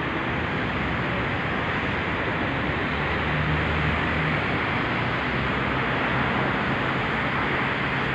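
Steady road traffic noise from cars and buses passing at a city intersection, with a vehicle engine's low hum growing stronger for a second or so past the middle.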